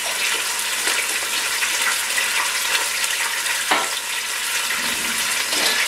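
Beef bottom round roast searing in avocado oil in an Instant Pot on sauté mode: a steady sizzle.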